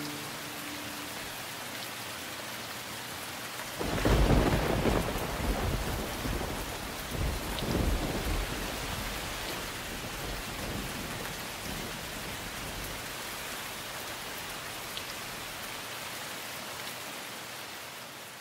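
Steady rain with a roll of thunder about four seconds in, rumbling with a second swell a few seconds later and then fading away under the rain.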